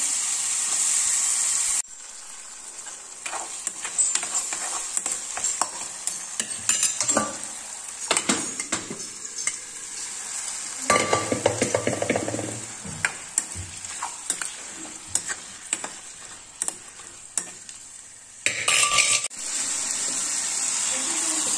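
A steel spoon scrapes and clinks against a kadai while masala sizzles in hot oil over a gas flame. About eleven seconds in, a pot of green flat beans is tipped into the kadai with a louder burst of clattering and sizzling.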